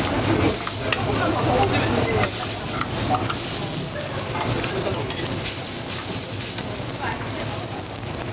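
Hotteok (Korean filled pancakes) sizzling in oil on a flat steel griddle, a steady frying hiss.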